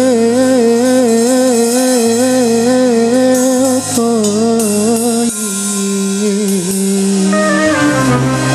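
Live Arabic pop song with a band: a male singer holds a long, wavering sung note over bass and drums, and the melody shifts lower about five seconds in.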